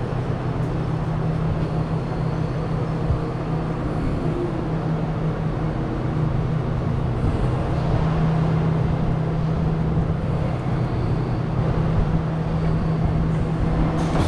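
Steady low mechanical drone with a constant hum, from the warehouse building's ventilation machinery.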